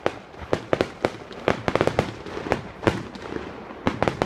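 Fireworks going off: rapid, irregular sharp pops and bangs, several a second, bunching into a dense crackle about two seconds in, from gold crackling shells bursting.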